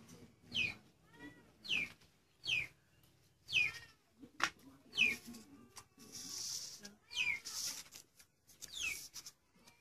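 A kitten meowing over and over, short high-pitched meows that fall in pitch, about one a second.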